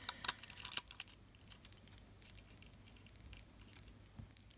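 Light clicks and taps from a laptop hard drive and its makeshift mounts being unscrewed and handled: a quick run of clicks in the first second, then a few scattered taps, with a couple more clicks near the end.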